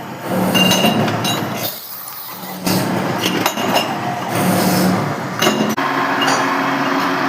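Metal clinking while a workshop machine runs in spells with a steady hum, with sharp clicks in between, during the machining of brass tap parts.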